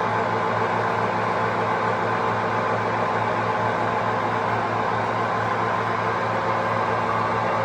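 A steady mechanical hum with a low drone under a broad rushing noise, unchanging throughout. It is the unexplained noise in question, which comes without any vibration.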